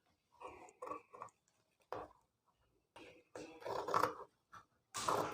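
Paper being cut and handled: a series of short, quiet crisp rustles, with a longer cluster about four seconds in.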